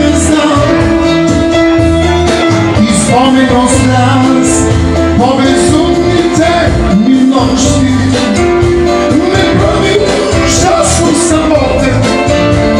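Live music through a PA speaker: a man singing a melody with held notes into a microphone over a backing track with a steady beat.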